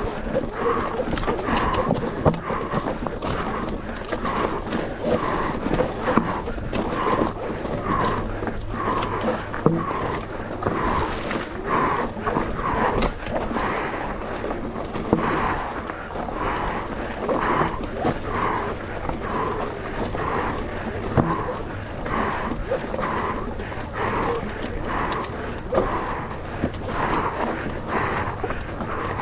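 A rider breathing hard in a steady rhythm, a little more than one breath a second, over the knocks and rattles of a mountain e-bike on rough ground.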